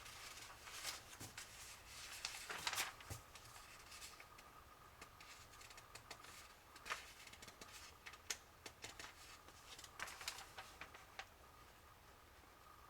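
Faint rustling and light clicks of paper pages being handled while leafing through a manual, scattered and irregular, over a faint steady high hum.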